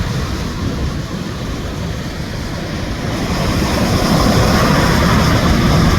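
Heavy surf breaking, with wind buffeting the microphone in a loud, low rumbling rush that swells about halfway through.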